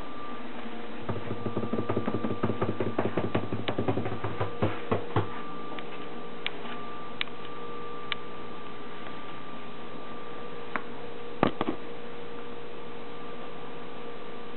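A quick run of light clicks and knocks for about four seconds, then a few separate sharp knocks spaced out, the loudest about eleven seconds in, over a steady hum.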